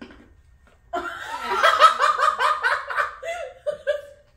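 A person laughing hard in a run of quick, rhythmic ha-ha bursts, about five a second, starting about a second in and trailing off near the end.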